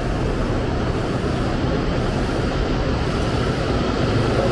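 N700S shinkansen train of the West Kyushu Shinkansen 'Kamome' at a station platform, a steady low rumble; near the end it gets a little louder and a faint whine comes in as the train begins to pull away.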